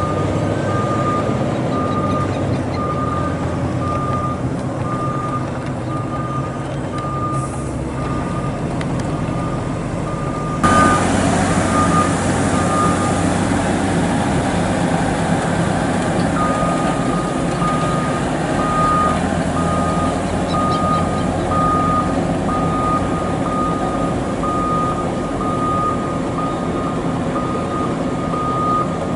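Heavy diesel dump trucks running, with a truck's warning beeper sounding about once a second. About eleven seconds in, the hiss of a water tanker spraying the road joins the engine noise; the beeping pauses for a few seconds, then carries on.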